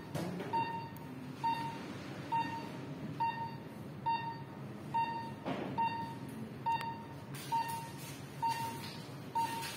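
Patient monitor's pulse beep: a short high tone repeating evenly about once every 0.9 seconds, roughly 68 a minute, each beep marking a heartbeat, over low room noise.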